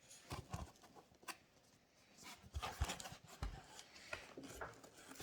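Faint, scattered knocks, taps and light scrapes of a product box being handled and opened, busier in the second half.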